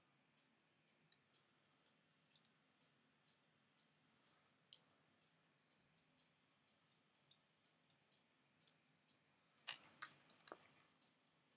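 Near silence broken by scattered faint clicks and ticks, with a short cluster of louder clicks about ten seconds in: small die-cast toy car parts being handled as a tiny screw fixes the engine to the base.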